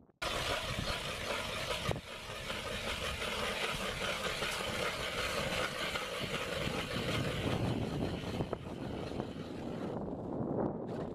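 Hand-cranked ice auger's blades cutting into lake ice: a steady grinding, crunching scrape. Near the end it turns duller and lower.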